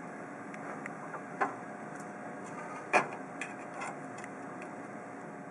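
Small sharp clicks and taps of DIP RAM chips being handled on an Apple IIe memory expansion card, the two loudest about a second and a half and three seconds in, over a steady faint hum.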